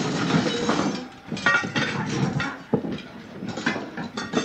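Dinner plates being dealt from a stack and set down on a cloth-covered table, repeated clinks and knocks of plate against plate and table.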